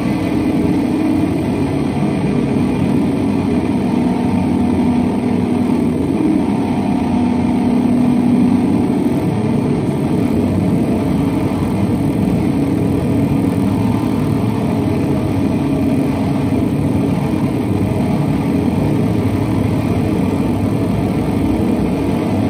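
Electric guitar run through two chains of effects pedals, producing a loud, dense, steady drone of processed noise. A few held low tones sound within it for the first several seconds.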